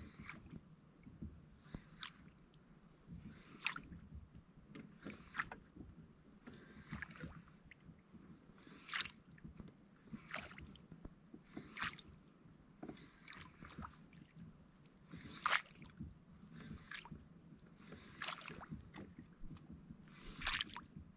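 Water splashing and lapping against a fishing kayak, a short splash about every second and a half to two seconds over a low steady wash.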